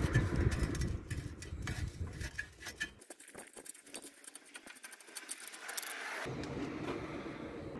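Small metallic clicks and rattles as a bolt on a motorcycle frame bracket is worked loose and drawn out by hand, over a low rumble that drops away for a few seconds in the middle.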